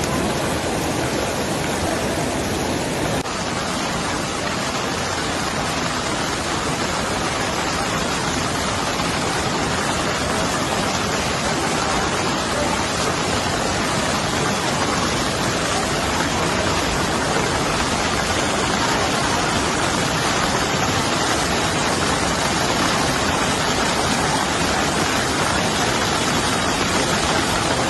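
Steady rushing of the Ganges river in spate, swollen by heavy monsoon rain, a loud, even noise with no let-up.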